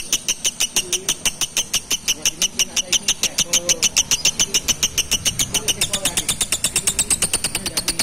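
Blue masked lovebird singing a long, unbroken rapid trill of sharp high chirps, about nine a second, whose pitch steps up about six seconds in.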